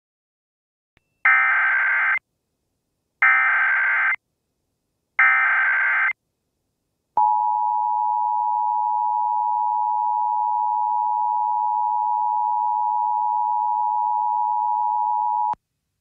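Emergency Alert System alert tones: three bursts of the SAME header's screeching digital data, each about a second long, two seconds apart. About seven seconds in comes the steady two-tone EAS attention signal, held for about eight seconds before it cuts off sharply. Here it heralds an Emergency Action Notification.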